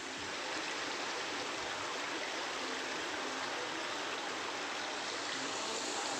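Steady rushing and splashing of water jets pouring into a fishing pond.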